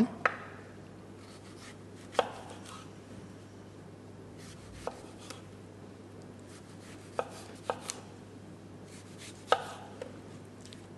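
Kitchen knife cutting fresh apples on a cutting board: separate, irregular knocks of the blade meeting the board, about ten of them, spaced a second or more apart.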